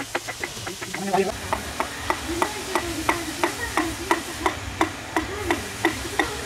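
Wooden mallet striking a wood-carving chisel in a steady rhythm, about three blows a second, as the chisel cuts into a log.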